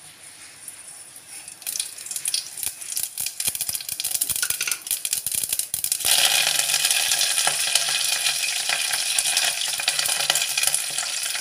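Mustard seeds crackling and popping in hot oil in a steel pot, spluttering in scattered sharp pops. About six seconds in, it jumps to a loud, dense sizzle as fresh curry leaves hit the oil, and it sizzles steadily on as green chillies go in.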